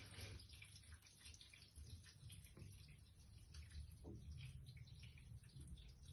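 Near silence: faint room tone with light rustling and crackling, like a phone being handled.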